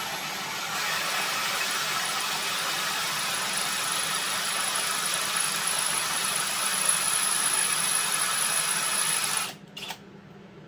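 Kobalt cordless drill running steadily with a high squeal as its bit cuts into an iron pulley. It stops abruptly about nine and a half seconds in, then gives one short burst.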